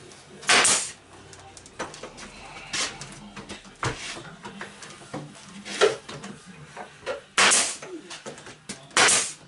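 Pneumatic nail gun firing into wood boards on a wall, tacking them in place: three loud, sharp shots, about half a second in, around seven and a half seconds and near the end, with lighter knocks between.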